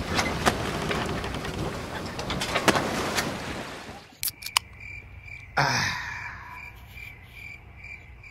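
Wind buffeting the microphone over the motor of a small boat moving away across the river. About four seconds in, the sound cuts to crickets chirping in a steady pulse, with one short sharp sound a moment later.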